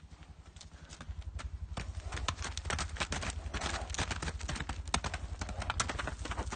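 A barefoot horse's hooves crunching over rocky ground as it moves from a walk into a canter. The irregular hoof strikes come sparse at first, then about two seconds in they turn quick and loud.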